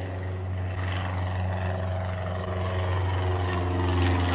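Jet airliner engine drone: a steady low hum with a hiss above it, growing steadily louder, then cutting off abruptly.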